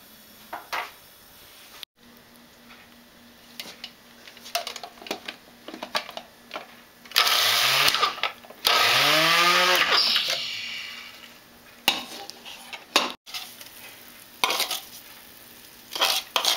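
Small electric food chopper whirring in two short pulses about seven seconds in, chopping herbs; the second pulse winds down in pitch as the motor stops. Knocks and clicks of the chopper's bowl and lid being handled come before and after.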